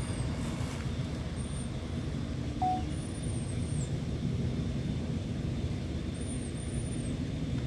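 Outdoor background: a steady low rumble, with high thin bird chirps repeating every couple of seconds and one short mid-pitched beep about two and a half seconds in.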